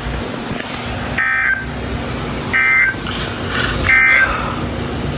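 Emergency Alert System end-of-message data signal: three short, harsh warbling bursts of digital tones, each about a third of a second long and about a second and a half apart, sent over steady radio hiss. It marks the close of the broadcast severe thunderstorm warning.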